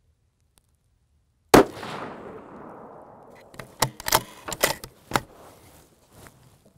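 A single shot from a .224 Valkyrie rifle about one and a half seconds in, its report echoing and dying away over about two seconds. It is followed by a quick run of six or seven sharp clicks.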